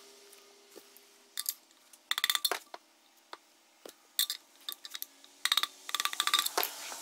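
Tools and small parts being handled on a workbench: several short bursts of clinking and rattling, the longest near the end.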